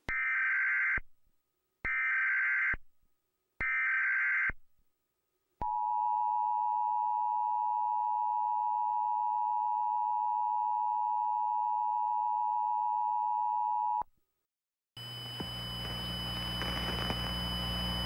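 Emergency Alert System test tones: three short bursts of SAME digital header data, then the steady two-tone EAS attention signal (853 and 960 Hz together) for about eight seconds, which cuts off abruptly. About a second later a harsh buzzing tone with high whistles starts and grows louder.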